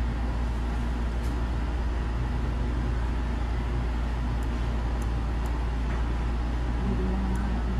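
Steady low hum and rumbling background noise, even throughout, with a few faint brief clicks.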